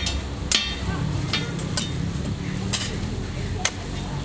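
A metal spatula clacks sharply against a flat iron griddle about five times at an uneven pace, over the steady sizzle of frying.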